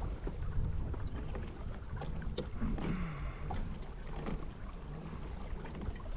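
Wind buffeting the microphone of a kayak-mounted camera on a river, with water lapping at the hull. A couple of sharp knocks sound about two and a half and four seconds in, and a brief falling-pitched call comes between them.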